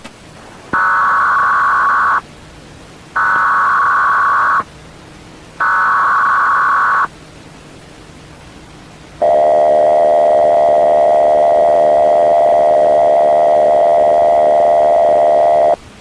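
Emergency Alert System-style alert tones: three short bursts of warbling data header tones, each about one and a half seconds long, then a long steady attention tone lasting about six and a half seconds. A constant static hiss runs underneath.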